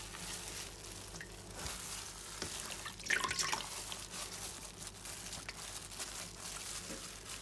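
Wet fabric being squeezed and pressed down into a steel bowl of liquid by a hand in a thin plastic glove: squelching and sloshing, with small drips and crinkles, and a brief louder burst about three seconds in.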